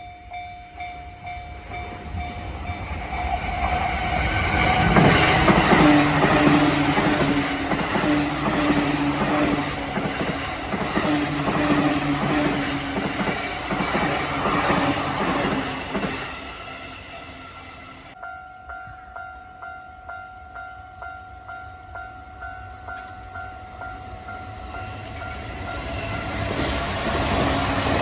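A JR E235 series electric train passes over a level crossing, loud for about ten seconds while the crossing alarm rings. After it has gone, the crossing alarm keeps ringing with a regular ding about one and a half times a second, and near the end the rumble of another train rises as it approaches.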